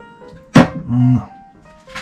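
Background music with a single sharp knock about half a second in, followed by a short low tone.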